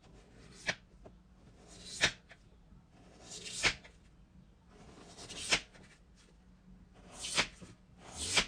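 Slime being worked by hand, squished and stretched: about six times a squelching swell builds up and ends in a sharp pop, every second and a half to two seconds.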